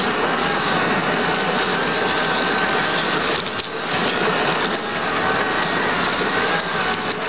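Model train locomotive's small electric motor and gears whining steadily as it runs along the track, over a rough rattling noise from the wheels on the rails.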